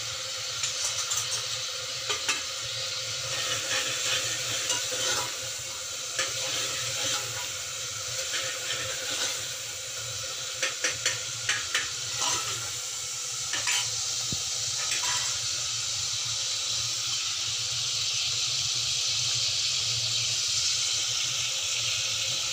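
Chopped tomatoes and ginger sizzling in ghee in an aluminium pressure cooker, with a steel spoon stirring and clinking against the pot in irregular clicks for about the first fifteen seconds; after that only the steady sizzle continues.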